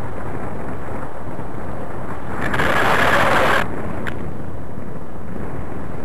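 Wind rushing over the microphone of a paraglider in flight: a steady rumble of wind noise. About two and a half seconds in, a louder burst of hiss starts abruptly and stops abruptly after just over a second.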